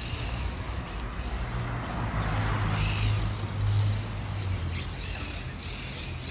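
Birds calling in short, harsh, high-pitched bursts, loudest about two and a half seconds in and again near five seconds, over a low hum that swells through the middle and fades near the end.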